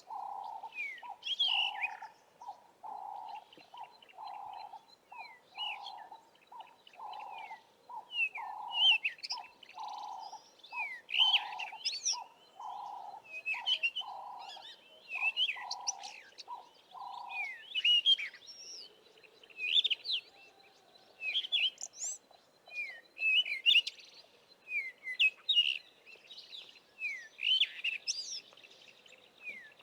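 Several wild birds singing together, with many short, quick falling chirps and whistles. Beneath them a low hooting note repeats a little more than once a second, then stops a little over halfway through.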